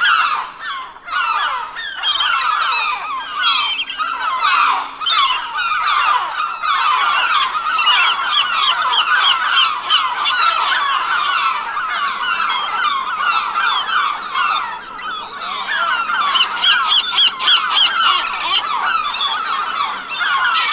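A flock of gulls calling together, many overlapping squawks with no pause.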